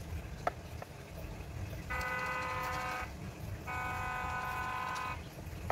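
A horn sounding twice: two steady, single-pitched toots of roughly a second and a second and a half, with a short gap between them. A faint click comes about half a second in.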